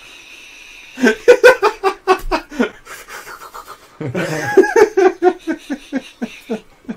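Men laughing hard in two bouts of quick, rhythmic bursts, the first about a second in and the second from about four seconds in.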